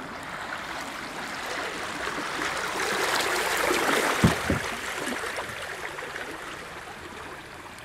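Water washing and trickling around a small boat's hull as it moves close past, swelling and then fading, with two short low thumps a little past the middle.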